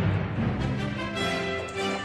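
Background music with held notes, opening with a deep low hit that fades over about a second.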